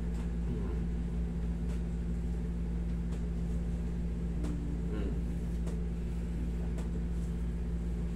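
Steady low hum of a room air conditioner running, with a few faint ticks over it.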